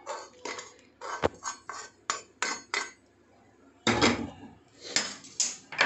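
Metal spatula scraping and tapping around a kadai as dry-roasted cumin seeds are scraped out onto a steel plate: a run of short scrapes and clinks, then a few longer, louder scrapes about four seconds in.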